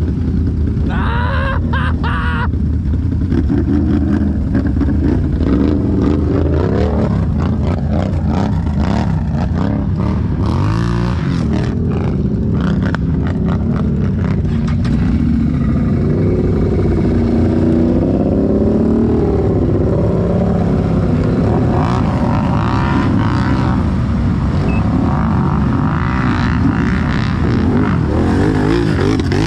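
Can-Am ATV engine working hard in muskeg mud, revving up and down with its pitch rising and falling.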